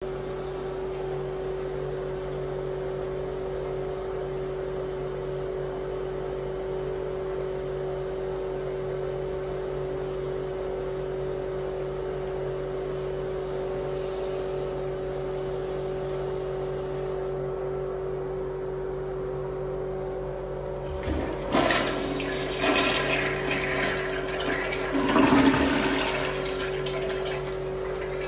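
A Briggs toilet flushing: a steady hum, then about three-quarters of the way in a loud rush of water that comes in several surges before easing off. This toilet is one that double-flushes.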